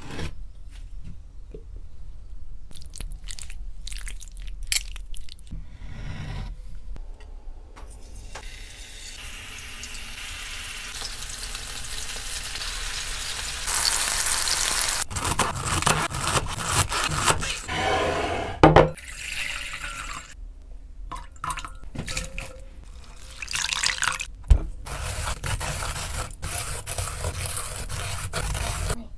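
Chicken pieces sizzling in oil in a grill pan, a steady hiss that builds and is loudest in the middle, with knocks and scrapes of kitchen handling around it. Near the end, a metal shredder rasps through a red cabbage.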